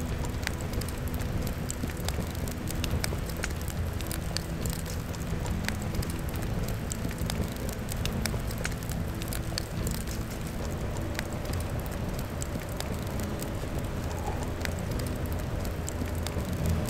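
Fire crackling, with sharp irregular pops and snaps over a low steady rush.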